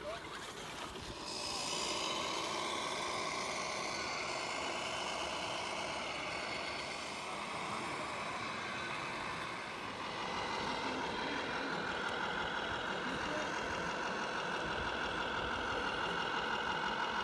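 Radio-controlled scale trucks driving, giving a steady mechanical whine of several pitches that gets a little louder about ten seconds in.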